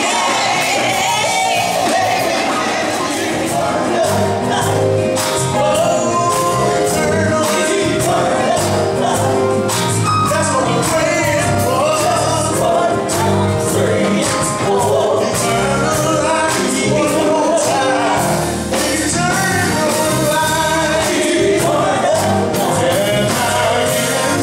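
Live gospel music: vocalists singing into microphones over a backing band with a steady beat.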